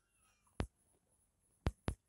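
A kitten gives a faint, high, falling mew near the start. Three sharp clicks sound over it, one about half a second in and two close together near the end.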